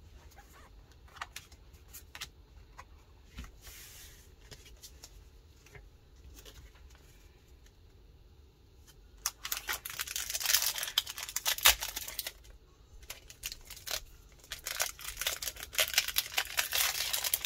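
A few soft clicks of cards being handled, then from about halfway a foil Pokémon card booster pack wrapper crinkling and tearing open.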